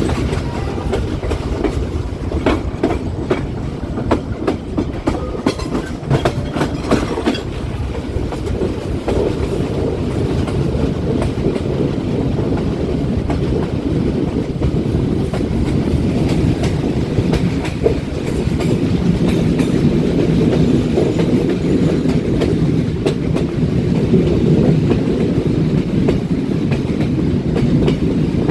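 Passenger train running along the track, its wheels rumbling with a run of sharp clacks over rail joints in the first several seconds, then a steadier, slightly louder rumble.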